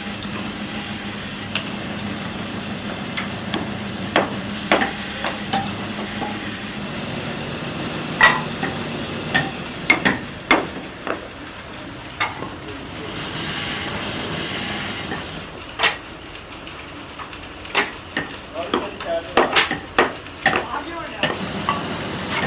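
Irregular sharp knocks and taps of hand work on wood in a workshop, over a steady machine hum that fades out about halfway through. A short hiss comes in just after the middle, and the knocks come quicker near the end.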